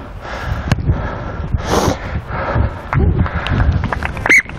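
Wind buffeting the microphone, then one short, high-pitched referee's whistle blast near the end, the loudest sound here.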